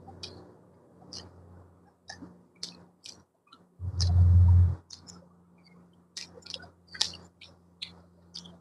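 Close-miked mouth sounds of someone eating: wet lip smacks and chewing clicks, several a second and unevenly spaced. A loud, low, dull thump lasts under a second about four seconds in.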